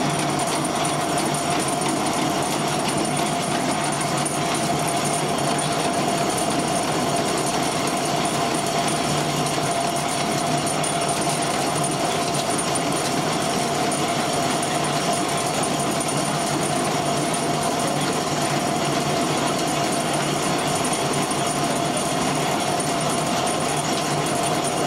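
Vibrating discharge bed of a grape-unloading trailer running: a steady, rapid mechanical rattle with a constant hum under it, shaking whole grape bunches off the stainless-steel bed into a hopper.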